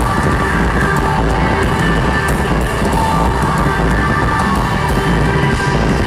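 A live rock band playing loud, with an electric guitar in the mix.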